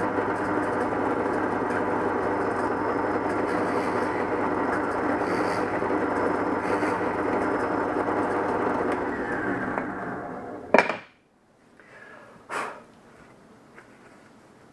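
Delta 11-090 drill press motor and stepped-pulley belt drive running steadily at its fastest speed, then switched off about nine seconds in and spinning down. A sharp click comes near eleven seconds, and a softer knock a little later.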